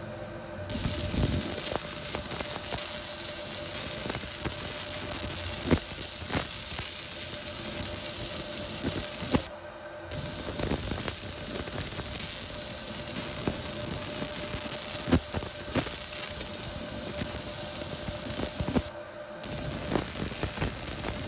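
Laser engraver running over a brass plate: a steady hiss with many small ticks, broken by two brief drops in level about nine and nineteen seconds in.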